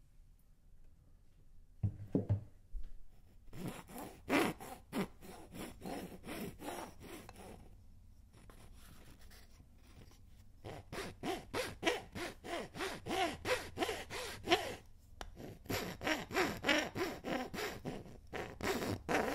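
Rhythmic back-and-forth scraping or rubbing strokes, about two or three a second. They start about two seconds in, stop briefly near the middle, then come back faster and louder.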